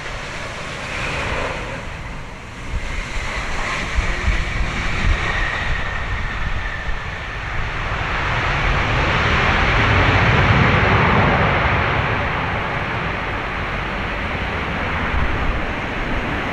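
Airbus A350-900's Rolls-Royce Trent XWB engines during touchdown and landing rollout. A thin whine runs for a few seconds, then a broad rush of engine noise swells to a peak about ten seconds in and fades as the aircraft slows. Gusty crosswind buffets the microphone with a low rumble throughout.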